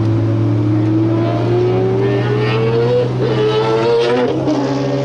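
Nissan Skyline R34 GT-R's single-turbo 3.2-litre RB straight-six heard from inside the cabin, pulling gently under light throttle while cruising. Its pitch climbs for about three seconds, dips briefly, climbs again and drops near the end.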